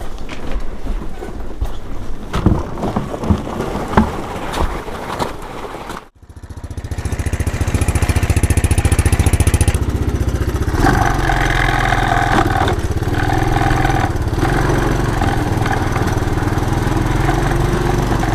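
Light knocks and rattles of gear being handled on an ATV's wire cargo basket; about six seconds in the sound cuts to a Honda ATV's engine running steadily as it is ridden.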